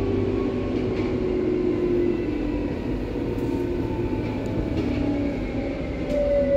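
Berlin U-Bahn H-series train (car H01) running, heard from inside: a steady rumble with electric traction whines that slowly fall in pitch, and a few faint clicks.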